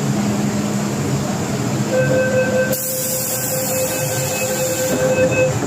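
A steady electronic warning tone, held about three and a half seconds from about two seconds in, over the running noise of an MTR M-train standing at the platform: the door-closing alert.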